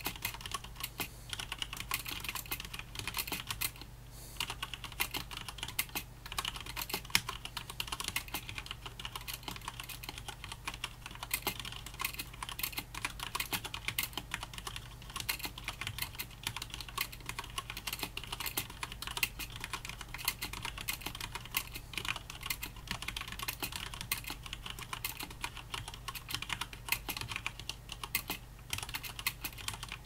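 Fast touch typing at about 70 words per minute on a Noppoo Choc Mini mechanical keyboard with linear Cherry MX Red switches and thick POM Cherry-profile keycaps: a dense, rapid run of keystrokes with a few brief pauses.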